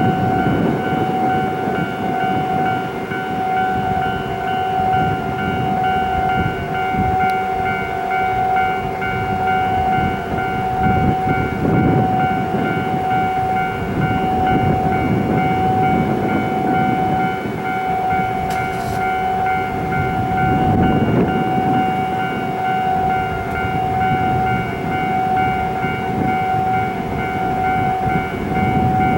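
A Japanese level crossing's electronic warning bell rings steadily. Under it, a KiHa 40-series diesel railcar train runs past with a rough, surging rumble of engine and wheels.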